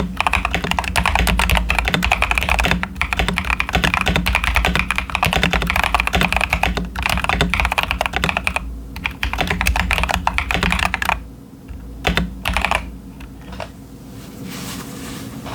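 Continuous fast typing on a modded CIY Tester 68 mechanical keyboard with Ashkeebs Auralite linear switches and Cherry-profile dye-sub PBT keycaps, its PCB taped and its case foam replaced with towel. It is a dense stream of keystrokes that thins to a few separate presses about eleven seconds in, then stops.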